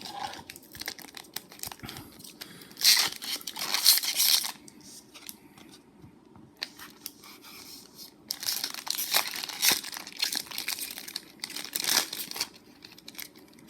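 A foil Magic: The Gathering booster pack wrapper being torn open and crinkled by hand, in several irregular bursts. The loudest come about three to four and a half seconds in and again around nine seconds.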